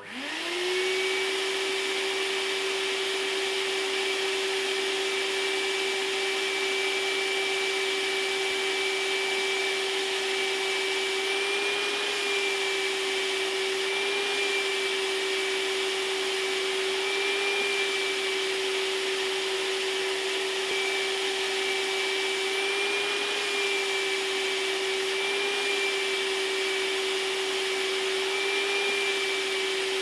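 Industrial vacuum cleaner switched on, its motor spinning up within the first second to a steady high whine over a rushing hiss of suction, with slight brief rises in pitch now and then.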